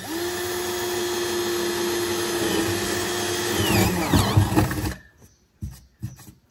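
Cordless drill running steadily as it bores a drainage hole through the floor of a bathtub; near the end the motor note wavers and drops under load, and it stops about five seconds in. A few light knocks follow.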